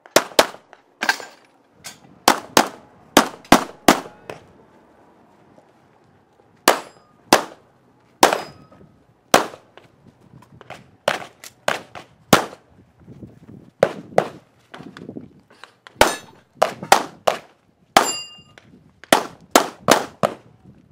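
Handgun fired in rapid strings of about thirty sharp shots, many in quick pairs, with a pause of a couple of seconds after the first nine or so.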